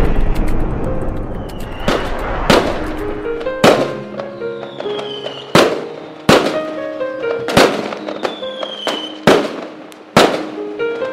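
Fireworks: about nine sharp bangs at uneven intervals of roughly a second, with three falling whistles and crackle between them. They play over the instrumental intro of a song.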